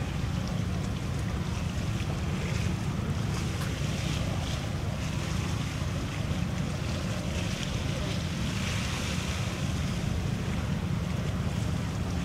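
Wind buffeting the microphone in a low, steady rumble, over a hiss of choppy water and small waves that swells and fades every few seconds.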